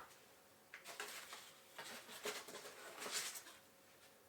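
Packaging being handled while a camera kit is unboxed: faint rustling with scattered light clicks and taps, busiest through the middle of the stretch.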